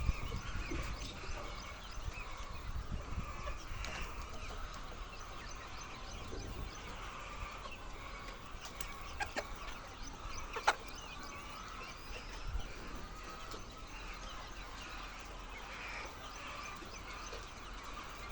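A large flock of laying hens clucking and chattering together in a continuous din, with a few sharp clicks midway.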